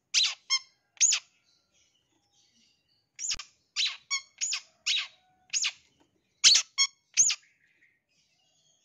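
Long-tailed shrike giving short, harsh calls in three bouts with pauses between them.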